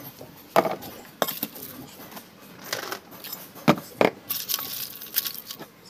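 Handling noises: a handful of sharp knocks and taps from a plastic container being handled, the loudest about half a second in and again near four seconds, followed by crinkly rustling of dry compost material.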